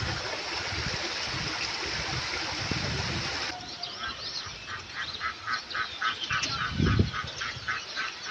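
Stream water running steadily, then after an abrupt cut a fast, even series of quacking calls, about three or four a second, with small birds chirping over them. A low thump comes near the end.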